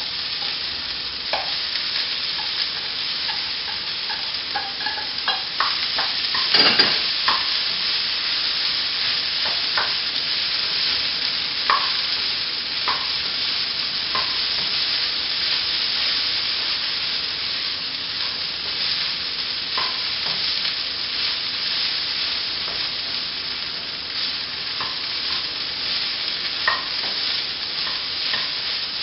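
Diced vegetables and cooked quinoa sizzling in a hot non-stick pan as they are stirred with a spatula: a steady frying hiss with scattered scrapes and taps of the spatula against the pan, the sharpest about seven seconds in.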